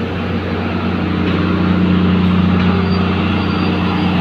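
Philippine National Railways diesel train's engine running steadily, a low hum that grows a little louder about a second in.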